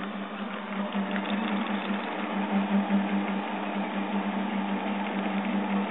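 Prusa Mendel RepRap 3D printer printing: its stepper motors buzz in an uneven, pulsing pattern as the axes move, over the steady hum of its cooling fan. It gets a little louder about a second in.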